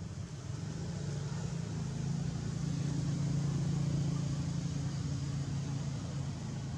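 Low engine hum of a motor vehicle, swelling over a few seconds to its loudest around the middle and then easing off, as a vehicle passing by would.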